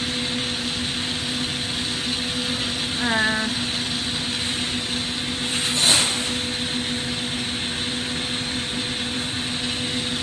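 Steady rushing of a lampworking torch flame, with a low steady hum beneath it. A brief louder burst of noise comes about six seconds in.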